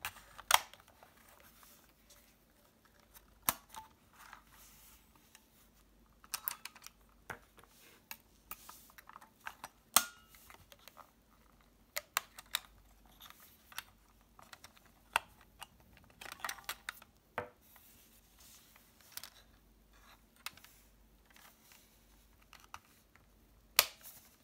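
Olympus Superzoom 80G 35mm compact film camera being handled: scattered sharp plastic clicks and taps from its body and sliding front cover under the fingers, some in quick little clusters, with soft rubbing between.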